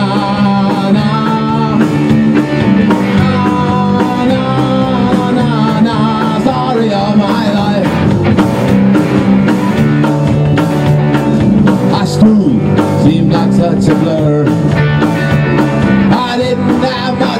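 Rock band playing live: electric guitar over a drum kit with cymbals, loud and steady.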